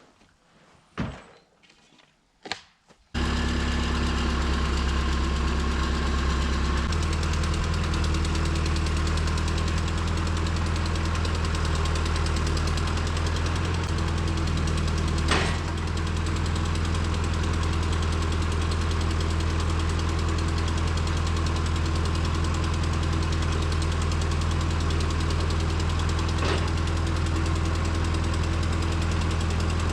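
Engine running steadily, starting abruptly about three seconds in after a couple of soft clicks, and picking up speed slightly a few seconds later.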